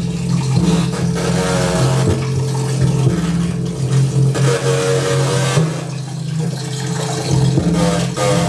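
Live experimental electronic music: a steady low drone under a dense noisy texture, with pitched tones that come and go above it.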